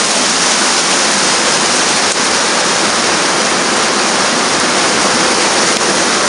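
Heavy rain pouring down, a loud steady wash of noise that does not let up.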